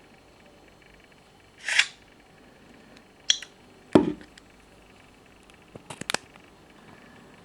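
Handling noise on a smartphone: a short rub, then a sharp click and a dull knock, and a quick run of clicks a couple of seconds later.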